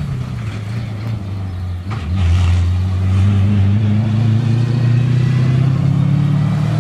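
Off-road rally van driving hard along a forest track, its engine running at a steady high note that jumps louder about two seconds in as it comes closer.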